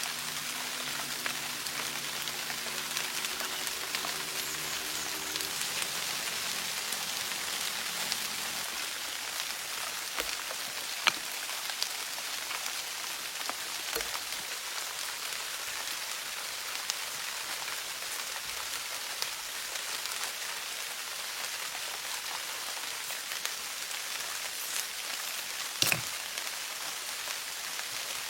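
Steady rain falling, with a few sharper drop-like taps scattered through it; faint held music notes fade out in the first few seconds.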